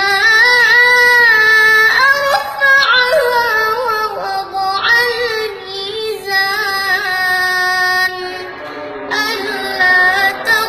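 A boy's high voice reciting the Quran in melodic tajwid style. He opens on a long held note with a slight waver and moves through ornamented phrases, with a short break about eight seconds in before a new phrase.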